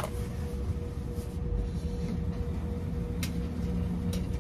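Steady low hum inside a stopped car's cabin, with a constant higher tone running through it and a few faint clicks.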